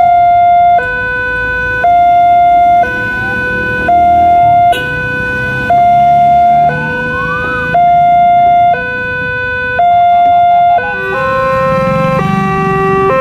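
Indonesian railway level-crossing alarm sounding its electronic two-tone warning: a higher and a lower tone alternating, each held about a second. About eleven seconds in it changes to another crossing's alarm, a lower-pitched pair of tones alternating at a similar pace.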